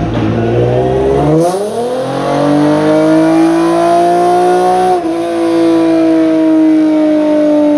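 Hyundai Genesis Coupe 3.8 race car's V6 engine running on a chassis dyno through a sequential gearbox. The note climbs steeply from about a second and a half in, keeps rising, breaks off for an instant about five seconds in as a gear shifts, then holds a steady, slightly falling note.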